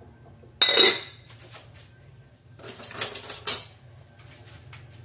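A metal pot lid clangs with a short ringing tone just over half a second in, then a metal cooking pot and utensils clatter several times around three seconds in.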